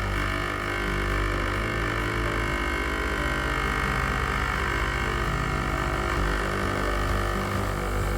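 Breville Bambino Plus espresso machine's vibratory pump running steadily on an automatic double shot, a low hum under the hiss of water being pushed through the empty portafilter into a milk jug.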